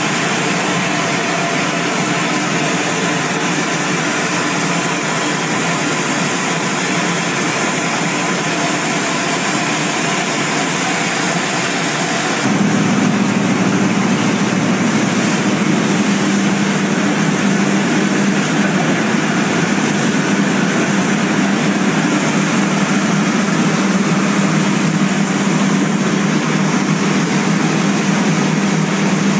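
Rice mill machinery running steadily, with grain streaming down metal chutes. About twelve seconds in, the noise gets louder, with a stronger low hum, at a Milltec Silk Master rice polisher.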